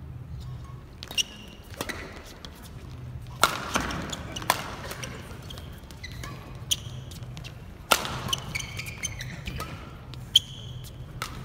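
Doubles badminton rally: sharp racket strikes on the shuttlecock, about seven of them at uneven intervals of one to two seconds, with short high squeaks of players' shoes on the court mat between the hits.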